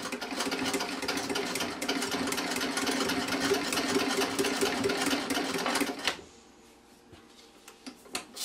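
Vintage treadle sewing machine stitching through six layers of fleece, a fast, even clatter of needle and mechanism. It stops about six seconds in, followed by a few light clicks near the end.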